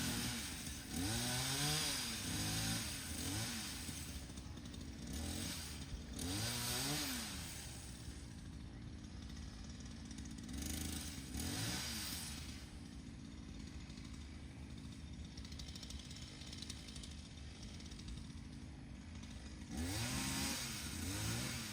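Chainsaw cutting branches off a fallen tree, its engine revving up and dropping back to idle again and again.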